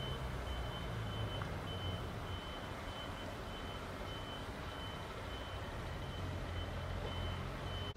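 Reversing alarm on a construction vehicle: a high single-tone beep repeating about twice a second, over the low rumble of a running diesel engine.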